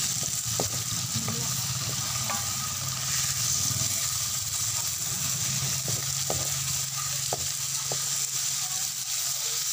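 Shrimps sizzling in a pan with browned garlic and onions, stirred with a wooden spatula that gives a few light taps and scrapes against the pan. A steady low hum runs underneath.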